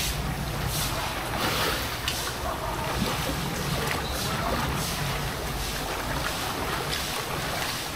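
Footsteps wading through ankle-deep floodwater on a paved street: rhythmic sloshing splashes, a little more than one a second, over a low steady rumble.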